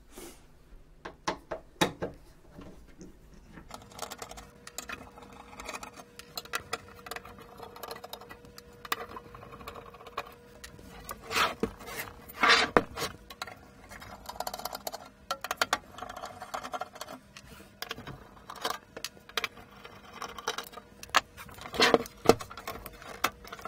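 Screws being taken out of the recorder's case with a screwdriver: scattered small clicks, scrapes and clinks of the tool, the screws and the casing, with a few louder knocks, over a faint steady hum.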